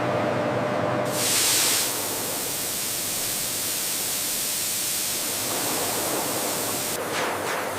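A steady rushing hiss, with a brief louder swell of high hiss about a second in.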